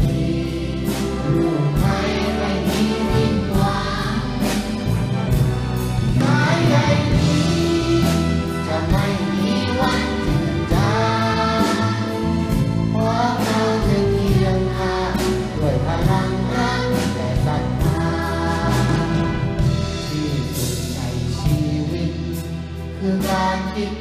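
A children's choir singing a song with a youth orchestra accompanying, over a steady beat.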